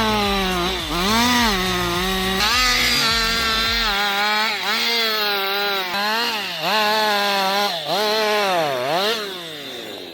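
Chainsaw engine running at high revs while cutting, its pitch dropping and recovering again and again, about once a second, as the chain is loaded in the wood.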